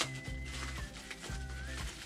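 Background music: a low bass line that changes note every half second or so, under a thin high melody line that holds and then dips in pitch.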